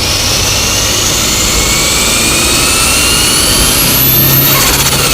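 Holset HX35 twin-scroll turbocharger on a Mitsubishi Eclipse GSX spooling under acceleration: a whine that climbs steadily in pitch over the engine's running. About four and a half seconds in, the whine peaks and falls away as the throttle comes off, with a fast fluttering pulse.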